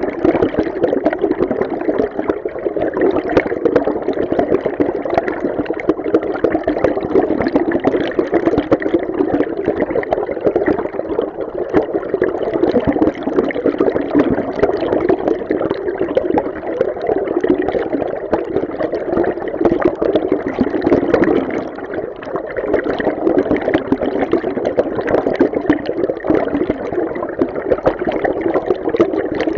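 Flowing river water heard from underwater: a steady, dense rushing wash with its weight in the low middle and little high hiss, dipping briefly about two thirds of the way through.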